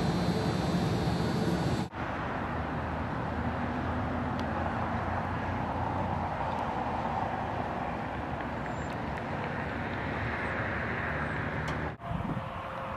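Steady outdoor noise of road traffic and wind. It breaks off abruptly twice where the footage is cut.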